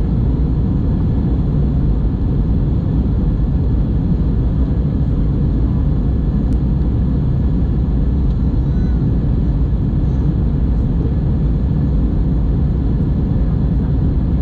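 Steady low roar inside the cabin of an Airbus A321 airliner in the climb after takeoff, heard from a seat over the wing: jet engine noise and airflow over the fuselage, even and unbroken.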